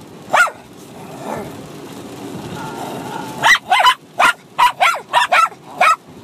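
Two Bichon Frise dogs, a puppy and an adult, barking at each other while play-fighting. There is one sharp bark near the start, a pause of about three seconds, then a quick run of about eight high, short barks.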